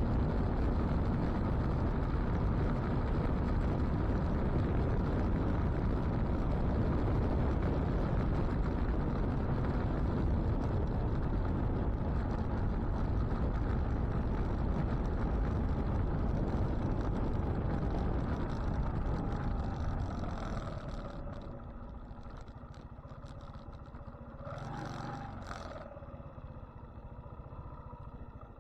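Steady low rumble of a vehicle running, which dies down after about twenty seconds. A few seconds before the end, a pitched engine tone bends down and back up.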